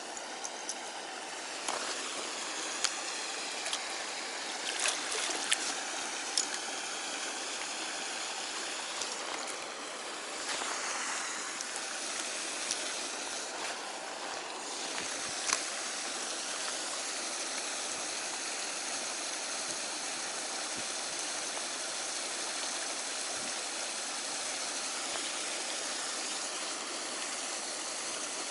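Steady rush of running water, with a few sharp clicks in the first several seconds and one more about halfway through.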